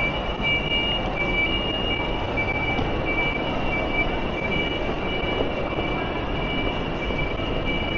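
A vehicle running steadily, with a constant high whine at two pitches, one of them flickering on and off.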